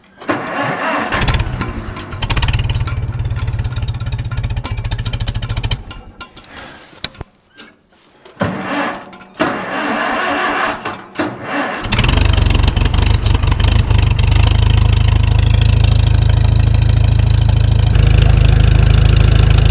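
Tractor engine starting in freezing cold: it runs for about six seconds and dies, stumbles and sputters for several seconds, then catches about twelve seconds in and settles into a steady run.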